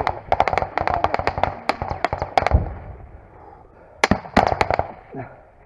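Small-arms gunfire: rapid, irregular rifle shots, dense through the first two and a half seconds, then a second short cluster of shots about four seconds in.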